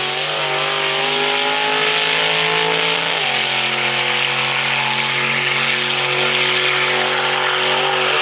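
Drag race car engine held at high revs with a strong hiss over it, stepping down to a lower steady pitch about three seconds in.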